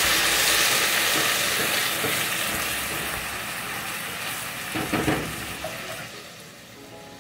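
Browned ground meat sizzling in a pot as canned peeled tomatoes are poured in and stirred with a spatula, the sizzle dying away steadily as the wet tomatoes cool the pan. A short cluster of knocks about five seconds in.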